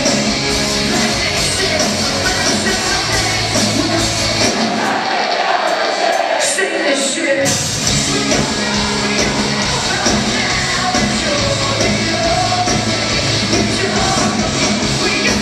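Rock band playing live with a singer, heard from the audience in a concert hall. About five seconds in, the bass and drums drop out for a couple of seconds, leaving a thinner sound, then the full band comes back in.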